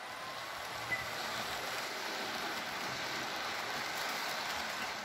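HO-scale model Glacier Express train running past close by: a steady rushing noise of its wheels rolling on the rails and its motor, with a single click about a second in.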